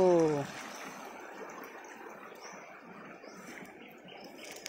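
Steady rush of a small stream running over rocks, growing slightly fainter.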